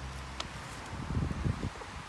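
Rustling in dry leaf litter where chickens are scratching and pecking, with a low rumble of wind on the microphone about a second in.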